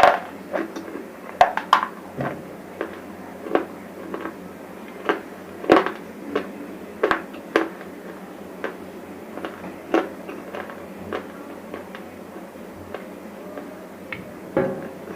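Dry crunching of bar chips: sharp crunches and cracks at an uneven pace, about one every half second to a second, thinning out in the second half.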